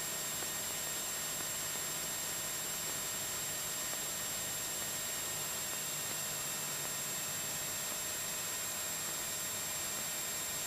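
Steady hiss and faint hum of an aircraft headset intercom feed, with the Cessna 172SP's engine idling low and muffled behind it while holding on the runway.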